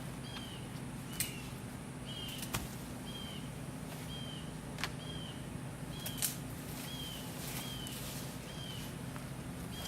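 A bird repeats a short, slightly falling chirp about every three-quarters of a second, over a steady low hum, with a few sharp clicks in between.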